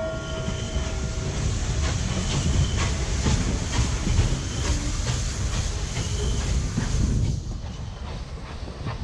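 N&W 611, a J-class 4-8-4 steam locomotive, passing with its train: the last of a steam whistle blast in the first second or so, then exhaust beats and the rumble of the engine going by. The passenger coaches follow, wheels clicking over rail joints, and the sound drops about seven seconds in as the locomotive moves off.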